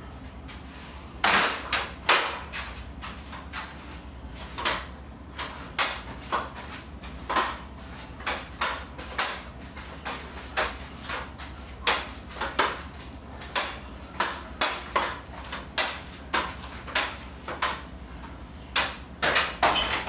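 A run of sharp knocks and clinks, about two a second, from hands-on work on a garage door's torsion-spring hardware.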